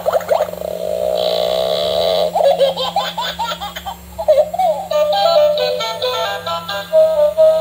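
Battery-powered bubble-blowing toy's sound chip playing a tinny electronic tune, with a synthetic giggling, laughing voice mixed in.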